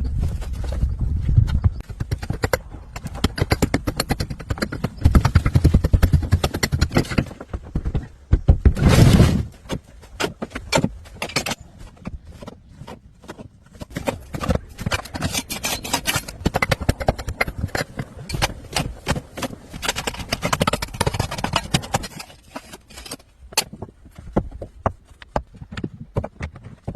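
A long run of irregular knocks, clicks and scraping, dense and loud for the first ten seconds, then sparser and quieter.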